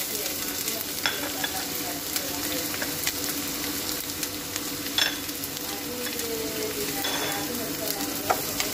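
Diced onions sizzling in hot oil in a stainless steel frying pan, a steady hiss, with a few sharp knocks from the utensils against the pan.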